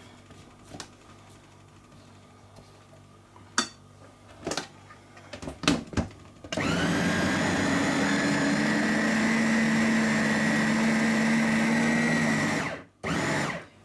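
A few plastic clicks and knocks as the motor head is fitted onto an electric mini food chopper, then its motor runs for about six seconds, a steady whir whose pitch sinks slightly, stops, and gives one more short pulse. The chopper is packed with ground beef, onion and eggs, and it is struggling with the load.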